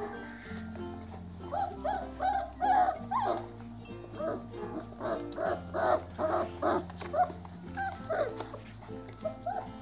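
Bell Griffin puppies (a Komondor, Standard Poodle and Springer Spaniel cross) yipping and whimpering in quick runs of short high calls as they play-fight, over steady background music.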